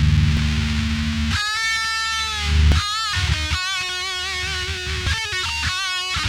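Electric guitar played through a heavy distortion pedal tone. A low, thick chord rings first. About a second and a half in come sustained single lead notes, one bent down and the later ones held with vibrato.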